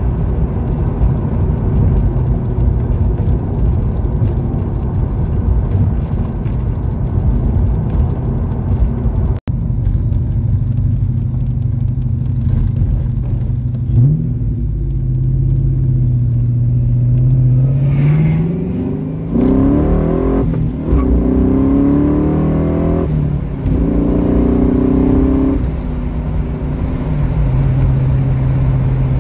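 Modified 1996 Ford Mustang GT's 4.6-litre V8, with cams, shorty headers and a Magnaflow H-pipe exhaust, heard from inside the cabin. It cruises steadily with road noise, then a little past halfway it accelerates hard, the revs climbing in three rising runs with brief dips between them, before settling back to a steady cruise near the end.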